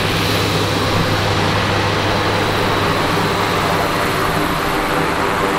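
A Cessna 208 Caravan's PT6A turboprop engine runs steadily at taxi power, turning a five-bladed propeller. The sound is a constant low propeller hum with a thin high whine on top.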